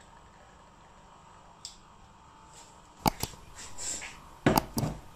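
A few sharp clicks and knocks over a faint steady hum: one small click, two sharp clicks a little past halfway with a short hiss after them, then the loudest pair of knocks close together near the end.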